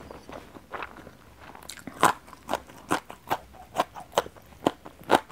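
Raw yardlong bean being bitten and chewed. Faint chewing gives way, about a second and a half in, to loud crisp crunches at about two a second, close on a clip-on microphone.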